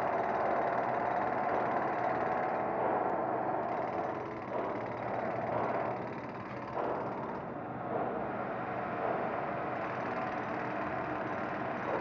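Steady drone of city traffic noise, easing off slightly about a third of the way in.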